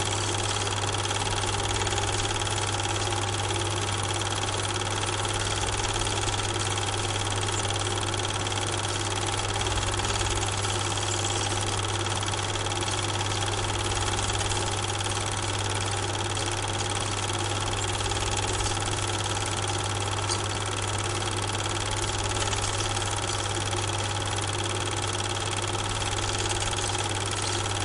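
A steady, unchanging mechanical hum with hiss, like a machine or engine idling.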